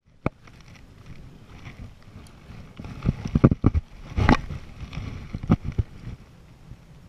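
Wind buffeting the microphone and choppy water lapping against a fishing kayak's hull, with a sharp click just after the start and a cluster of dull knocks through the middle.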